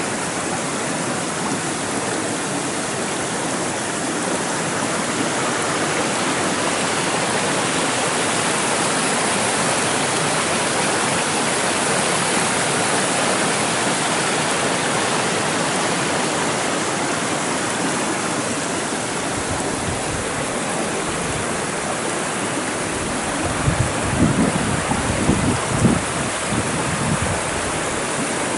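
Rainwater runoff rushing steadily over stones and through brush in a normally dry rambla swollen by heavy rain, with a few low thumps in the last few seconds.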